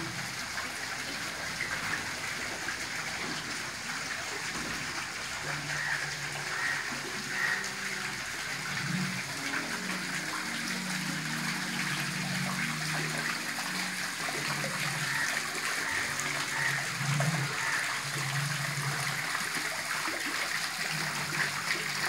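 Garden fountain running: thin water jets and dome-shaped bell nozzles splashing steadily into a tiled pool.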